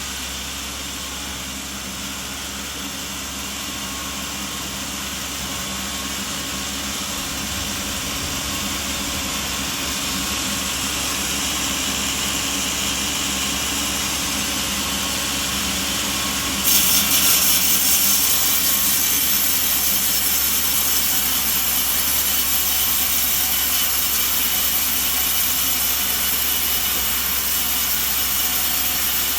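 Sawmill machinery running steadily with a constant hum and hiss. About seventeen seconds in it suddenly gets louder and brighter.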